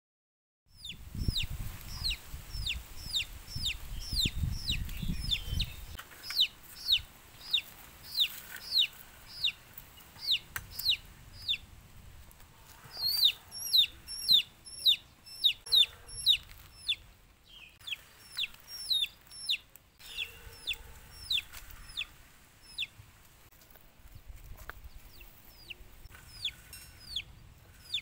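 Chick peeping over and over: short, high, falling peeps about two a second, starting about a second in, with a low rumble underneath for the first few seconds.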